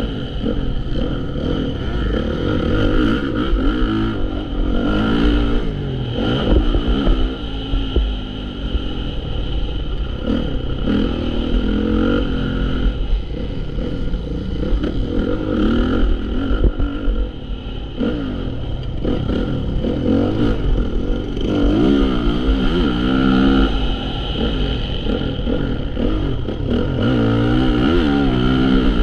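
Honda CRF450 motocross bike's single-cylinder four-stroke engine, revving up and falling back again and again as it is ridden hard, with a heavy low rumble throughout.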